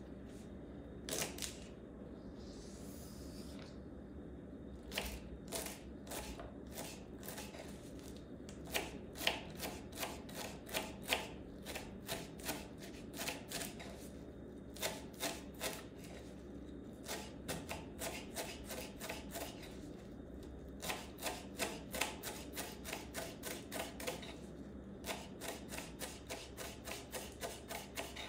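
Kitchen knife chopping celery stalks and leaves on a wooden cutting board: runs of sharp knocks, about three a second, with short pauses between runs. A short rustle about three seconds in.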